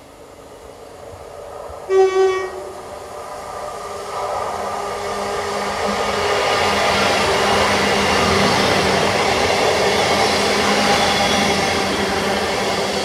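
GWR Class 158 diesel multiple unit sounding a short horn blast about two seconds in as it approaches. Then the noise of its engines and wheels swells as the train runs past and stays loud to the end.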